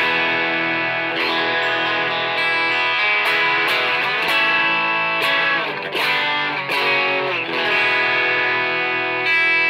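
Stratocaster electric guitar played through an IDEA-TSX ver.2, a TS808 Tube Screamer-style overdrive pedal, on its own: overdriven strummed chords and picked notes that ring and sustain. A fresh chord is struck near the end and left ringing.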